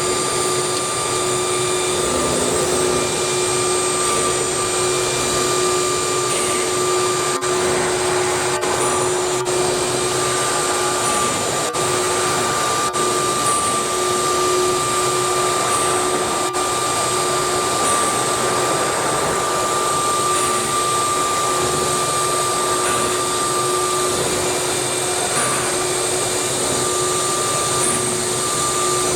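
CNC router running steadily, its spindle giving a held whine in two pitches over a dense mechanical hiss, with a few faint clicks.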